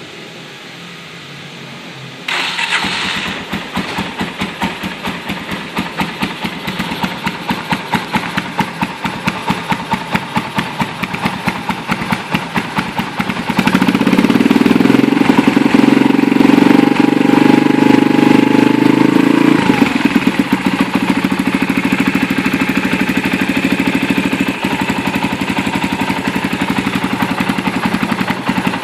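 Gas Gas TX Randonne 125 two-stroke trials motorcycle with a Mitani titanium exhaust, starting about two seconds in and then idling with a fast, even pulse. About halfway through it runs louder at raised revs for around six seconds, then settles back to idle.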